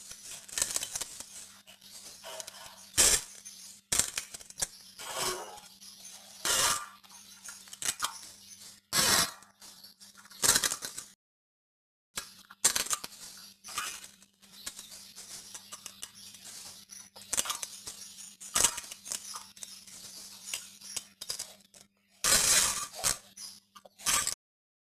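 Fart and poop sounds: a string of irregular sputtering noises of varying length over a faint steady low hum, with a pause of about a second near the middle.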